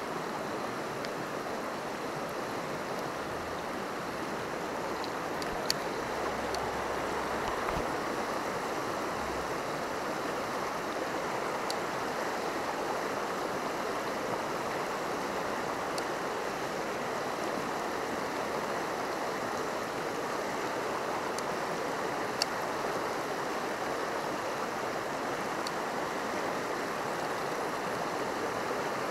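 Shallow, fast river running over rocks: a steady rush of water, with a few faint clicks now and then.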